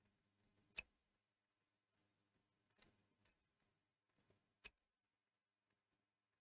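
Lock pick being zipped and raked against the pins of an Abus padlock: a few sharp, scattered metal clicks, the loudest about a second in, a small cluster around three seconds and another sharp click near five seconds.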